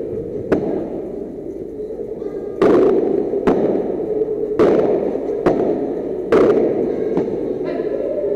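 Padel rally: the ball is struck by padel rackets and bounces off the court, about seven sharp hits at roughly one a second, louder from a little under three seconds in.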